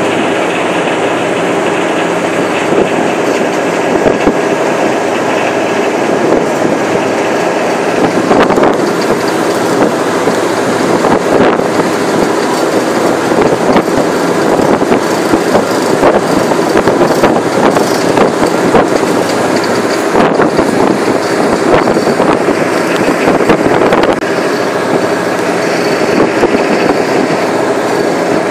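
Mississippi River ferry's engines droning steadily underway, a low multi-toned hum under a constant rush of noise.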